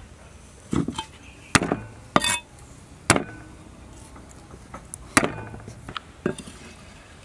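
Cleaver chopping red chilies and garlic on a wooden chopping block: about six sharp knocks of the blade into the wood, unevenly spaced.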